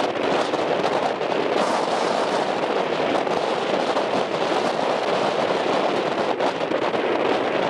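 Strong wind buffeting the camera microphone: a steady, loud rushing noise with a dense crackle of small clicks, over surf.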